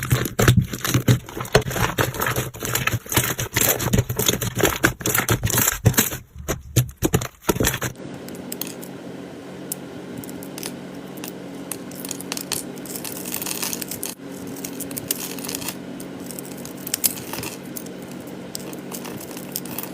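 Slime being squeezed and pressed by hand, with dense crackling clicks for about the first eight seconds. It then cuts to a quieter, softer handling sound with sparser faint clicks.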